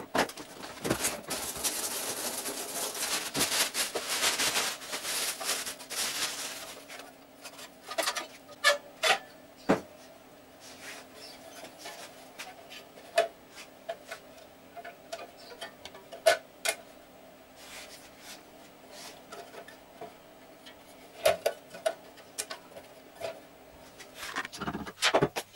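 Packaging rustling for the first six seconds or so as the part is unpacked, followed by scattered clicks and knocks as a galvanized sheet-metal air-intake box is handled, with a few louder knocks near the end.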